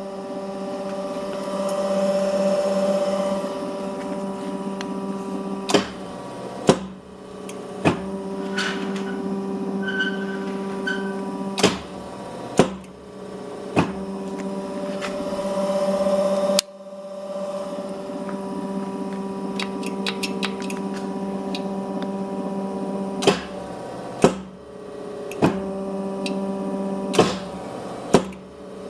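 Asahi Kikai clicker die-cutting press running: its motor hums steadily, and the cutting beam comes down with a sharp clack about eleven times, in runs of two or three strokes about a second apart. Partway through, the hum drops abruptly and then carries on.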